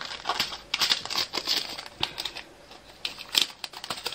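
Small plastic bags of diamond-painting drills crinkling and clicking as they are handled: an irregular run of light ticks and rustles.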